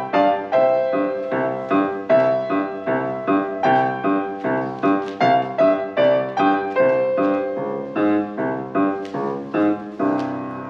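Solo piano playing a steady run of short, evenly spaced notes. The notes lengthen toward the end, closing on a final chord that is struck and left ringing.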